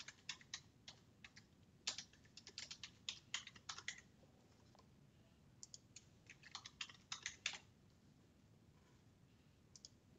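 Computer keyboard typing, in two bursts of quick keystrokes: one over the first few seconds, a second about six to seven and a half seconds in, then a couple of faint clicks near the end.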